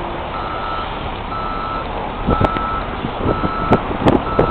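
Vehicle reversing alarm beeping steadily, about one half-second beep per second, over constant background noise. Several sharp clicks or knocks come in the second half.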